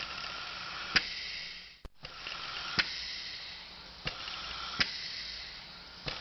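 Ambulance respirator cycling: a hiss of air that swells and fades about every two seconds, with a sharp click at the start of each cycle and another partway through.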